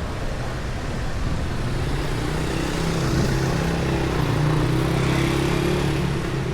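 Street traffic noise with a motor vehicle's engine passing close by, its hum rising to a peak in the second half and then easing.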